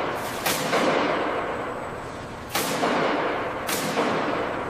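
Loud bangs, four in all: two close together right at the start, then two more about a second apart in the second half. Each trails off slowly in a long echo.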